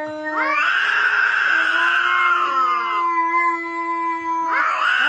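Domestic cat yowling: long, drawn-out screaming cries that sweep up at the start and hold, one beginning about a third of a second in and another near the end.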